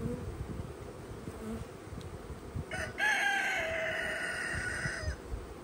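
A rooster crows once, a pitched call of about two seconds starting about three seconds in, over the steady buzz of a freshly installed package of honeybees.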